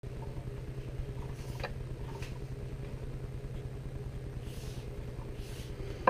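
Steady low hum with a couple of faint ticks about one and a half and two seconds in.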